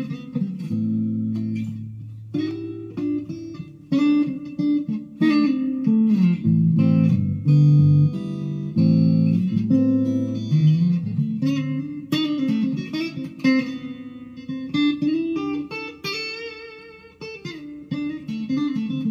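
Monoprice Indio Cali Classic Strat-copy electric guitar on its neck pickup, played through the small kit amp: a run of picked single notes and chords. The tone is pretty bright for a neck pickup.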